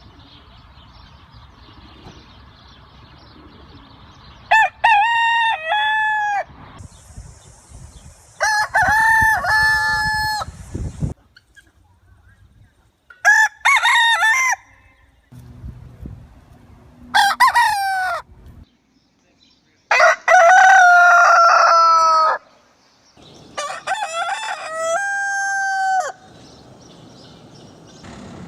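Roosters crowing, one crow after another, six in all, each lasting a couple of seconds. The crow about twenty seconds in is the longest, ending on a long held note.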